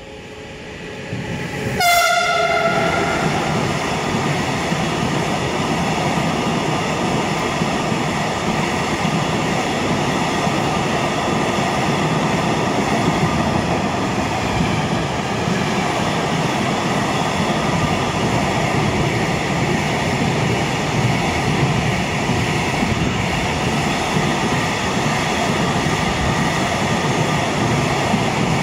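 Freight train hauled by a Siemens Vectron electric locomotive passing through a station. About two seconds in, as the locomotive goes by, there is a brief horn blast that drops in pitch. It is followed by a long, steady rumble and rattle of loaded container flat wagons running over the rails.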